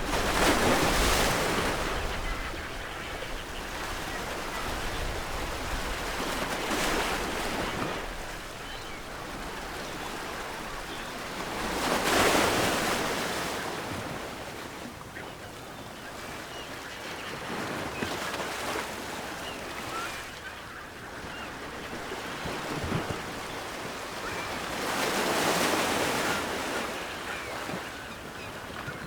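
Ocean waves breaking on a shore: surf swelling and washing in every five or six seconds, the loudest breakers about a second in and near the middle.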